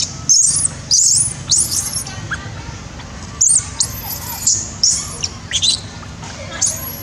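Newborn macaque giving a run of short, high-pitched squeals, distress calls while another monkey grips and pulls at it, with a pause of about a second and a half near the middle.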